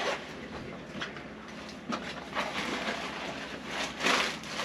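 Gift wrapping and packaging crinkling and rustling as presents are handled, in irregular bursts with a few small clicks; the loudest crinkle comes about four seconds in.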